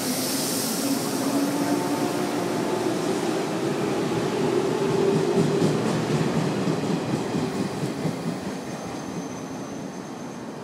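JR 113 series electric train pulling away from the platform as it accelerates. Its traction motors hum and rise in pitch, and its wheels click over rail joints as the last cars pass about halfway through. The sound then fades as the train draws off.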